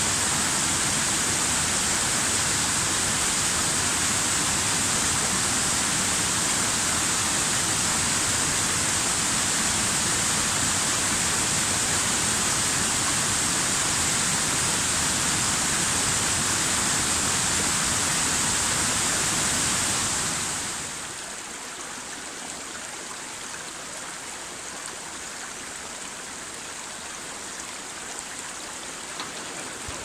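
Steady rushing of a stream, with a bright hiss on top. A little past two-thirds of the way through, it falls quickly to a quieter, softer rush.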